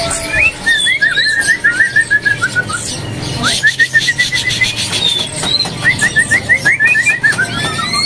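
White-rumped shama (murai batu) singing: three quick phrases of rapid repeated notes, the first and last sliding slightly downward, with short higher whistles in between.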